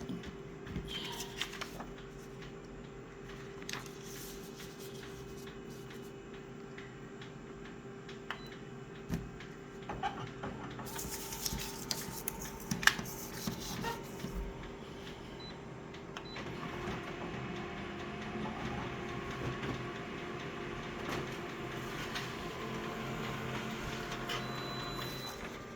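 Photocopier making a copy: a steady hum with scattered clicks and knocks, a burst of hiss for about three seconds from about eleven seconds in, then the machine running louder and steadily from about sixteen seconds in.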